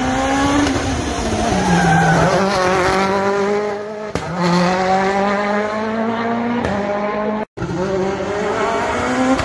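Rally car engines revving hard as the cars accelerate, the pitch climbing and dropping back again and again through gear changes. The sound cuts abruptly from one car to another about four seconds in, and breaks off for a moment at about seven and a half seconds.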